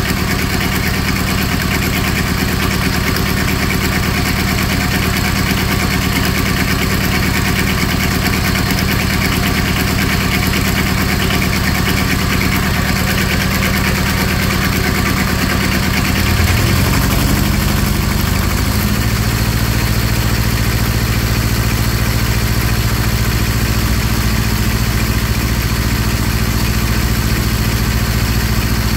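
Small diesel engine of a Carrier ComfortPro truck auxiliary power unit running steadily. About halfway through its note shifts and then settles again at a new steady pitch.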